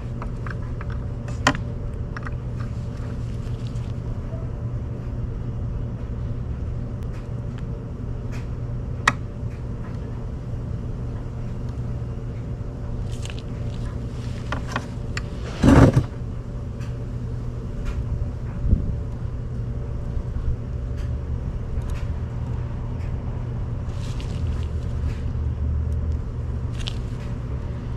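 Steady low background rumble, with occasional sharp clicks and short scrapes as a Time-Sert thread tap is started by hand in small turns. The loudest clatter comes about sixteen seconds in.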